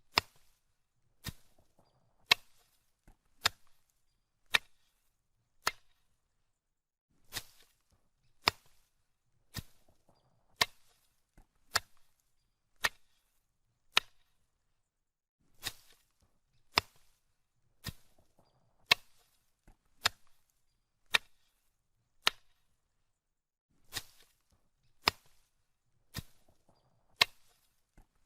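Machete swung through grass, each stroke a sharp swishing chop, about one a second in runs of five to seven strokes with short pauses between the runs.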